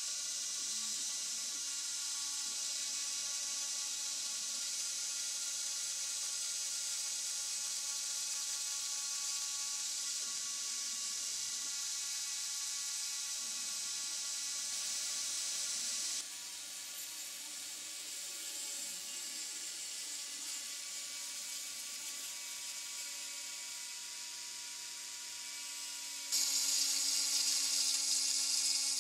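Dremel-type rotary tool spinning at high speed with a steady high whine, driving the cutter of a homemade CNC engraver, while salvaged photocopier stepper motors hum in short moves of changing pitch as the axes travel. The whole sound drops in level a little past halfway and gets louder again near the end.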